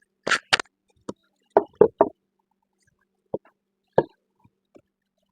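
Cedar boards knocking and clacking against each other and the bench as the birdhouse pieces are set in place: about eight short wooden knocks, two sharp ones near the start and a quick cluster of three around two seconds in.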